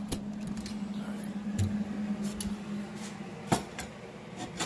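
Light metal clicks and knocks as a steel tube is handled and set into its sleeve on a welded steel base plate, over a steady low hum that stops about three seconds in. One sharper knock comes about three and a half seconds in.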